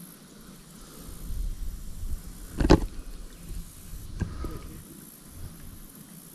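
Low, uneven rumble of wind on the microphone, with a loud thump about two and a half seconds in and a smaller one about four seconds in.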